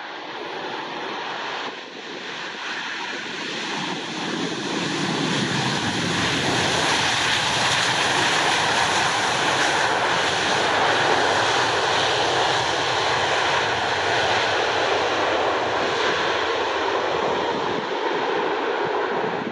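Boeing 737-800 with CFM56-7B turbofan engines rolling out on the runway after landing. The jet noise builds over the first several seconds as the aircraft comes closer, then holds loud and steady, easing slightly near the end.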